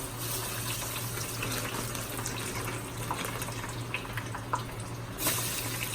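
Seasoned fries frying in hot grease: a steady sizzling hiss with scattered small pops, swelling louder about five seconds in.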